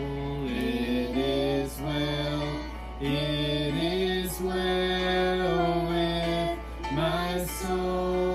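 Voices singing a slow hymn, with long held notes that glide between pitches.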